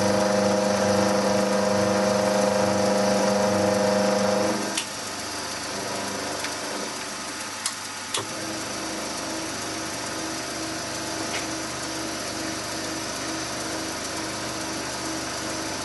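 Small vertical milling machine running, its end mill taking a light skimming pass across aluminium, with a loud steady whine of several held tones. About four and a half seconds in the whine drops away and the spindle runs on more quietly, with a single sharp click near the eight-second mark.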